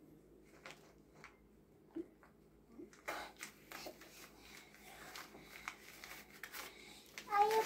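Paper banknotes rustling and crinkling as small hands handle them and tuck them into a pajama waistband, starting about three seconds in. A brief voice sound comes near the end.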